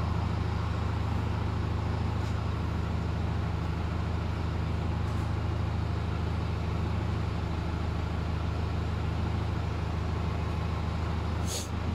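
Vehicle engine idling steadily, with a brief hiss near the end.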